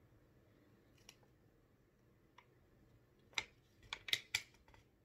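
Faint isolated clicks, then a cluster of sharp crackles a little over three seconds in: a plastic packaging pouch crinkling as it is handled and turned.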